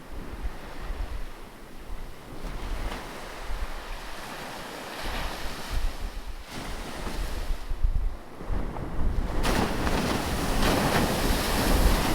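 Ocean surf: waves washing in, one swelling a few seconds in and a bigger one breaking about nine seconds in with a loud hiss of white water. Low buffeting of wind on the microphone runs underneath.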